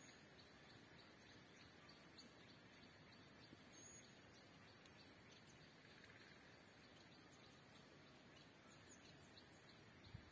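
Near silence: faint outdoor background hiss with faint, fast high ticking and one short high chirp about four seconds in.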